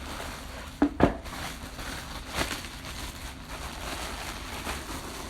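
Plastic packaging rustling and crinkling as it is handled, with two sharp knocks about a second in.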